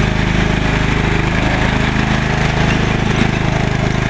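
Lawn mower engine running steadily at constant speed, close up and loud.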